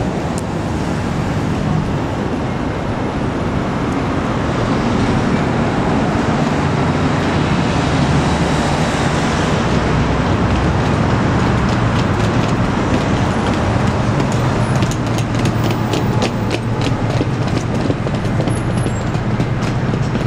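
Road traffic on a busy city street: a steady rumble of passing vehicles that swells a few seconds in. A quick run of light clicks comes near the end.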